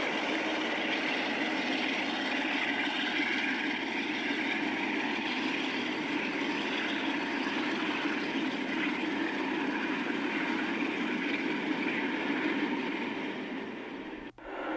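Diesel locomotive engine running steadily, with a brief dropout near the end before the sound picks up again.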